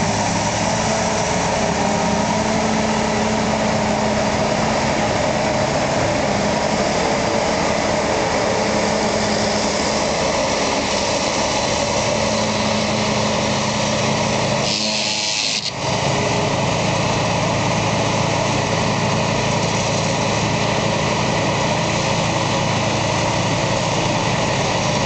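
Claas Jaguar forage harvester running steadily under load, its engine and chopper cutting and blowing grass with a direct-cut header, with a tractor engine running alongside. The sound breaks off briefly about two thirds of the way through.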